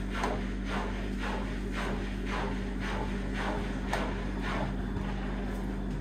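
Washing machine running a wash cycle: the drum tumbles its load of Pop It fidget toys with a swish about twice a second over a steady motor hum. There is one sharper knock about four seconds in.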